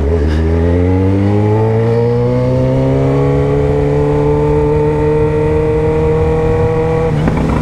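Yamaha XJ6's inline-four engine with an aftermarket sport exhaust, pulling hard under acceleration, its exhaust note climbing steadily in pitch as the revs build. About seven seconds in, the note breaks off and drops.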